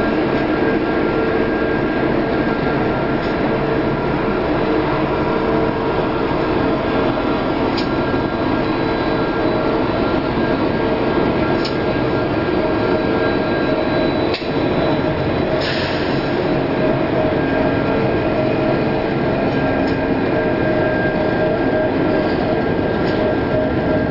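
Union Pacific diesel freight locomotives passing at close range, their engines running with a steady loud drone that carries several held tones, and a few sharp clicks scattered through it.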